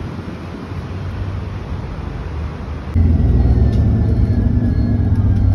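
Street traffic noise with wind on the microphone. About three seconds in it cuts suddenly to a louder, steady low engine drone heard from inside a moving vehicle.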